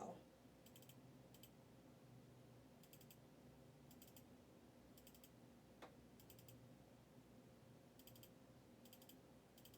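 Near silence: room tone with faint, recurring high ticks and one soft click about six seconds in.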